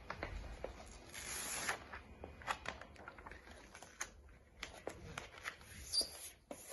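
Paper and sticker sheets rustling and crackling as a self-adhesive floor sticker is handled and pressed down onto a wooden floor, with a longer rustle about a second in and scattered light taps and clicks.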